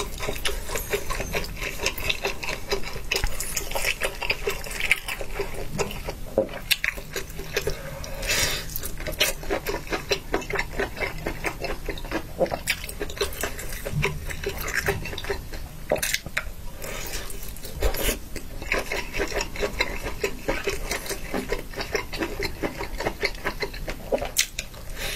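Close-miked wet chewing and slurping as a person eats food from skewers: a dense run of small wet clicks, smacks and sucking sounds.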